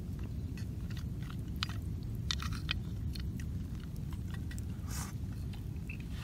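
A person eating seafood udon with mussels close to the microphone: chewing, with scattered sharp clicks, over a steady low rumble.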